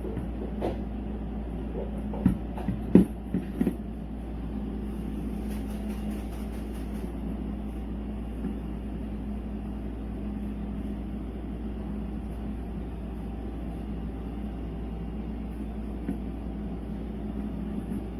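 A steady low hum with a few sharp knocks about two to four seconds in.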